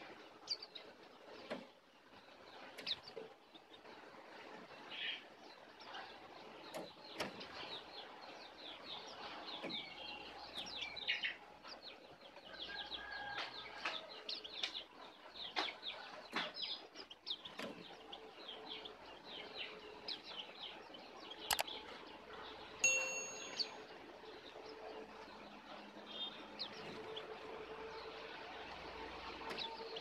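A flock of white-eyes (pleci) chirping, many short high calls overlapping, busiest about a third of the way in. About two-thirds through a sharp click is followed by a short ringing ding, the loudest sound.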